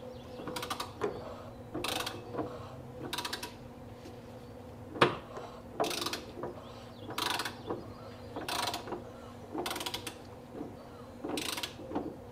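Ratchet wrench with a 36 mm socket on the generator pulley nut of a Porsche 356 engine, worked in short strokes: short runs of clicks about once a second, with one sharp click about five seconds in. This is the crankshaft being turned over by hand, 180 degrees, to bring cylinder four to top dead center.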